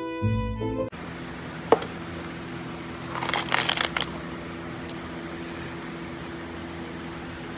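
Violin music cuts off about a second in and gives way to a steady mechanical hum. A single sharp click comes over the hum, followed by a couple of seconds of crackling, rustling handling noise.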